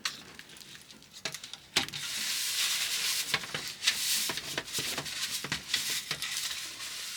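A steady, hissing rustle with many small clicks and scrapes, which starts about two seconds in and stops near the end.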